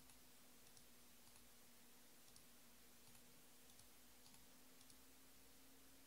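Near silence: about eight faint, light clicks, spaced half a second to a second apart, over a steady low hum.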